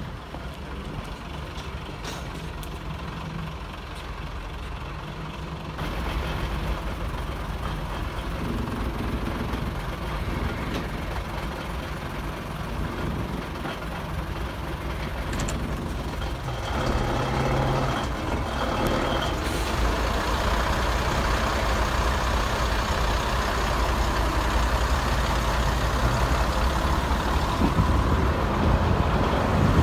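Diesel engines of a Class 121 'bubble car' railcar, heard from aboard: a steady low engine note at first, louder from about six seconds in, and louder again from about 17 seconds as the railcar pulls away from the platform and gathers speed.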